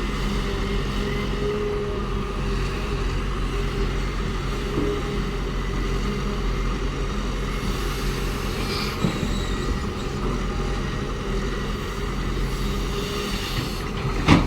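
Cat excavator's diesel engine running steadily under work, with a short knock near the end.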